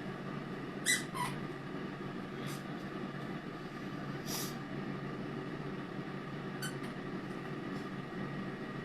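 Pampered Chef air fryer running steadily with its fan hum while it cooks. A brief high squeak comes about a second in, with a few faint ticks later.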